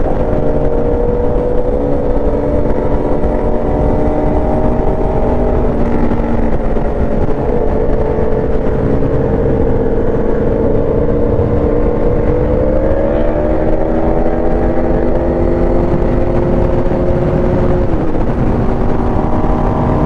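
Motorcycle engine running at cruising speed under heavy wind rush. Its pitch climbs about two-thirds of the way through as it accelerates, then drops sharply near the end.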